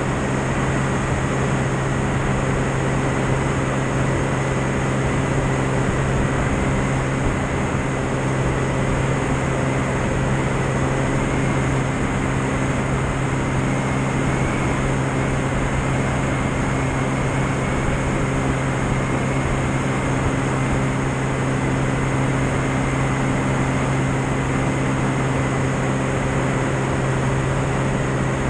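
Light single-engine piston aircraft in level flight: a steady engine and propeller drone with a strong low hum, over a rush of air past the wing-mounted camera.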